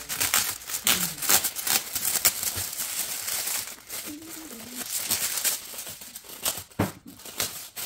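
Packaging crinkling and rustling as photo-folio packs are handled and unwrapped, dense at first and thinning out after about three seconds.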